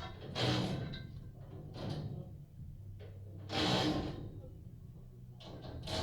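Scaffolding work heard from inside a house: two loud noises, each about half a second long, about three seconds apart, with lighter knocks between them over a steady low rumble.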